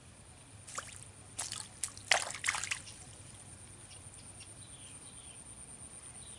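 A few small splashes and drips on the pond surface, clustered in the first three seconds, the loudest about two seconds in, then only a faint steady background.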